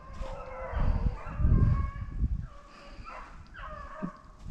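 A pack of rabbit hounds baying while running a rabbit: several drawn-out bawls, the later ones falling in pitch. Loud low rumbles sit under the first half.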